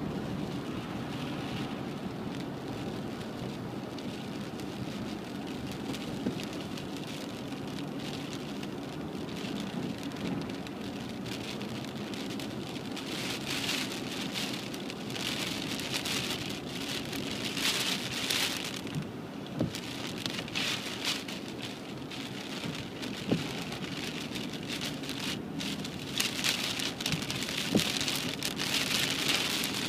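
Rain pattering on a car's windscreen and body, heard from inside the cabin over the steady low hum of the car driving on a wet road. The patter grows heavier about halfway through and again near the end.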